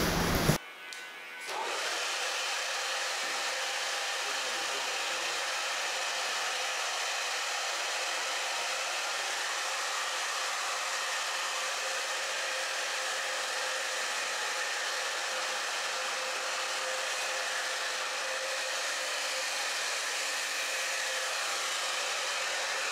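Blow dryer running steadily with an even whoosh of air, starting about a second and a half in.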